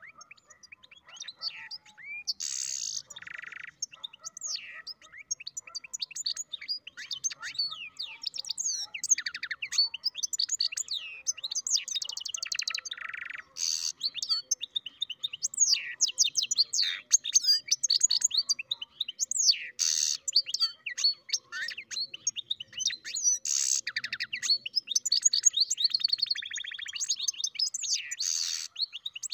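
Goldfinch × canary mule (hybrid finch) singing a long, continuous, varied song of rapid twittering notes and trills, starting about a second in. Every few seconds it breaks into a louder harsh, buzzy note.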